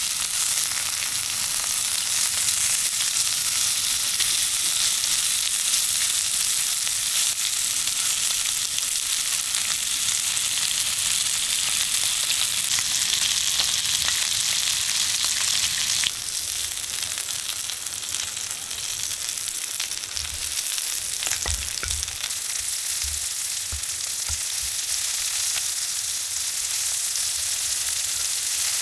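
Pork belly and pork rib meat sizzling steadily as it fries. The sizzle drops a little over halfway through, and a few light clicks and low knocks come a few seconds later.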